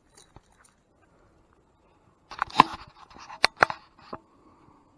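Sharp clicks and a short metallic clatter, with light rustling, about two to four seconds in: a caught bass and the spinnerbait in its mouth being handled.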